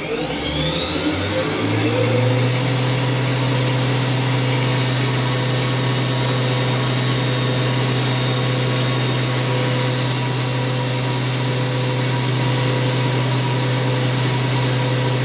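1995 Haas VF0 vertical machining center's Cat 40 spindle speeding up to its full 7,500 RPM. Its whine rises in pitch over the first two seconds or so, then the spindle runs steadily at top speed with an even high whine over a low hum.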